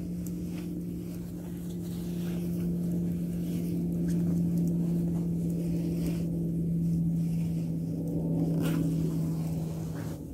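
A steady, low engine drone holding one pitch, wavering slightly near the end, with a few faint clicks and rustles of clothing being handled.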